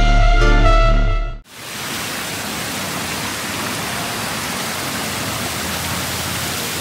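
Synthesizer intro music ends abruptly about a second and a half in, giving way to the steady splashing of water falling from a tiered stone fountain into its basin.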